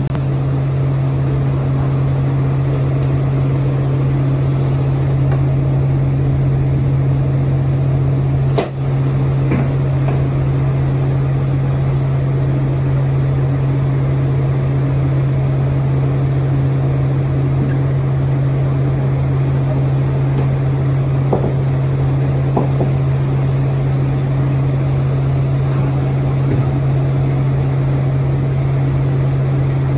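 Rescue boat davit crane's hydraulic power unit running at a steady low drone as the boom slews. A single sharp click about nine seconds in.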